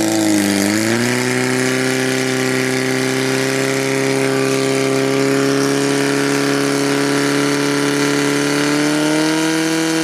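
Portable fire pump's engine running at high revs, pumping water out through the hose lines. The revs dip briefly about half a second in, then hold steady and rise slightly near the end.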